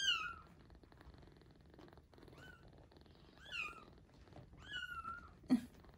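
Week-old kitten mewing: four short, high-pitched cries that each fall in pitch, the first right at the start and three more in the second half, with a sharp click near the end.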